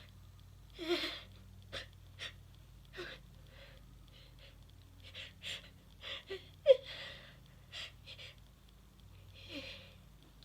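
A woman's short catching breaths and small voiced gasps every second or two as a sneeze builds. One sharp catch of breath about two-thirds of the way through is the loudest.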